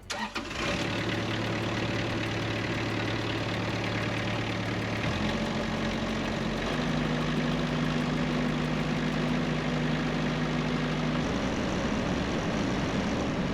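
Kubota V1505D four-cylinder diesel in a Rippa R32 mini excavator, started after an oil change to check everything runs right. It catches within the first second, then runs steadily. Its note shifts up in pitch about five seconds in, shifts again shortly after, and changes once more near the end.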